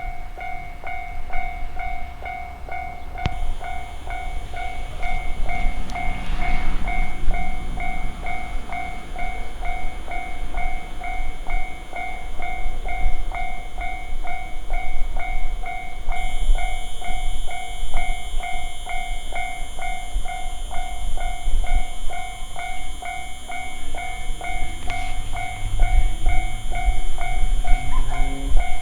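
Japanese level-crossing alarm bell ringing in quick, evenly repeated "kan-kan" strokes while an electric train rumbles past on the rails. Near the end a rising motor whine comes in.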